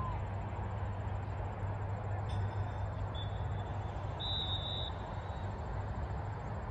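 Steady outdoor background noise across a sports field, with a low rumble that sounds like wind on the microphone. A faint, thin, high whistle-like tone comes in a few times near the middle, clearest for about half a second around four seconds in.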